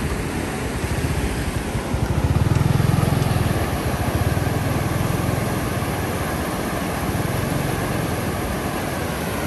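An engine running, with a steady noise behind it. The engine grows louder for about two seconds starting two seconds in, then settles back.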